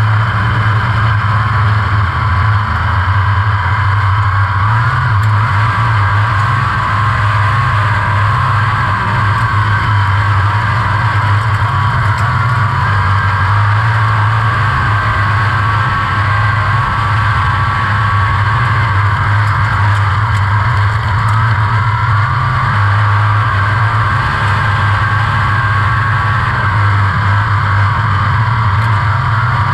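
A 360 sprint car's 360-cubic-inch V8 engine heard from the cockpit in a dirt-track race, running loud and steady with only small rises and dips.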